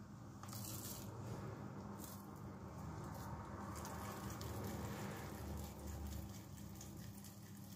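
Fingers dipped into a small bowl of water and shaken off, giving soft wet splashes and small taps, scattered and irregular, over a faint steady low hum.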